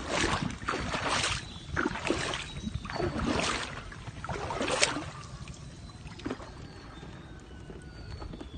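Water splashing and sloshing in a run of short swishes, several in the first half and one more about five seconds in, then fading to quieter lapping water.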